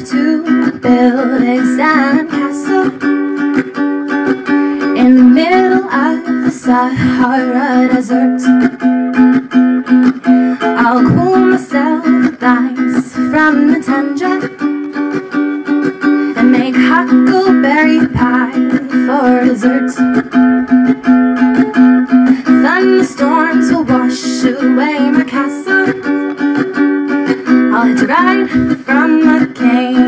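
A woman singing a folk song through a microphone, accompanied by a plucked acoustic string instrument.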